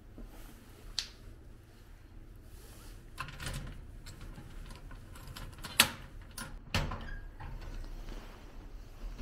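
A few sharp clicks and knocks, the loudest a little over halfway through, over a faint steady low hum.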